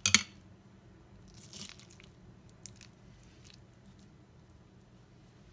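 Metal potato masher mashing avocado in a bowl: a sharp clack of the masher against the bowl just after the start, then soft squishing and a lighter click a little before three seconds in.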